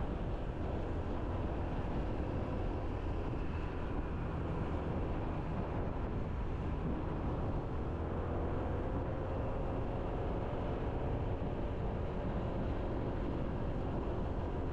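Steady wind and road noise from a motorbike on the move, with a faint engine hum underneath.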